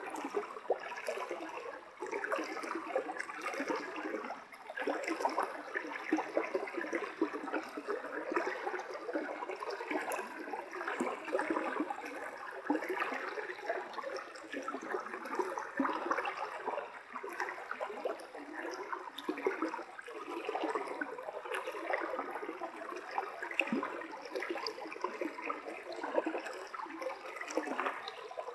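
Shallow forest stream running steadily, a continuous rippling water sound without pauses.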